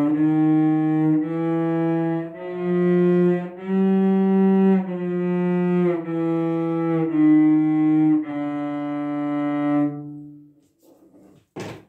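Cello bowed on the G string: a slow series of about eight sustained notes, a second or so each, stepping up and then back down around the F where the instrument had a wolf tone, to test hardware-store weights fitted as a makeshift wolf eliminator. The notes sound steady, and the last one fades out. A short knock comes near the end.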